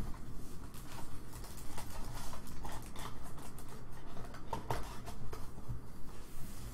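A cardboard trading-card hobby box being picked up and handled: scattered light taps and scrapes, with a soft rustle near the end.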